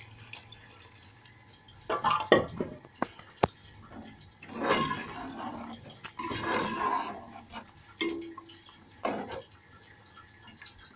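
Water poured from a jug into a metal cooking pot of chicken in oily sauce, splashing, with a few sharp knocks against the pot, then a spoon stirring through the liquid near the end.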